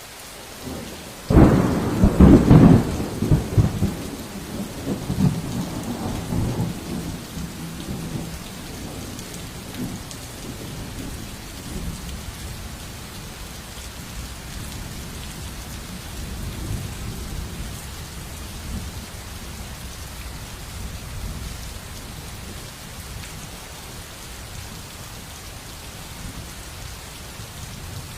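A thunderclap breaks about a second in and rolls away over several seconds, over steady rain.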